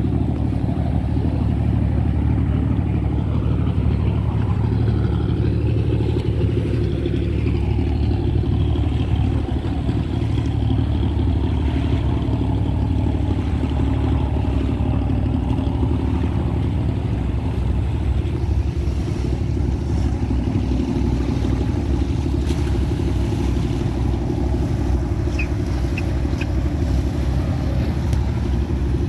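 Engines of small passenger motorboats running close by as they pass: a steady low drone.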